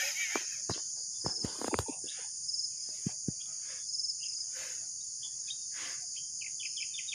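Steady, high-pitched insect chorus with scattered short bird chirps and a few soft knocks in the first two seconds.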